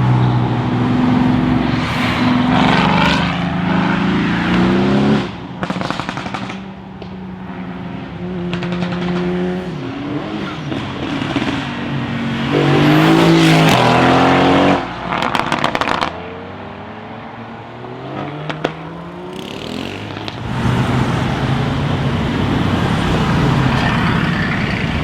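Straight-piped Mercedes-AMG GT S twin-turbo V8 revving hard in several loud surges, dropping back between them, with a short volley of sharp exhaust crackles as the loudest rev is cut off about fifteen seconds in.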